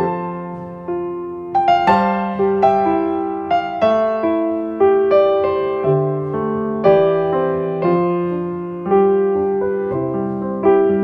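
Background music: solo piano playing a slow, gentle melody, each note struck and left to ring.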